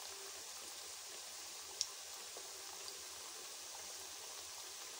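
Batter-coated potato fries deep-frying in hot oil: a faint, steady sizzle with a few small pops, one a little sharper nearly two seconds in.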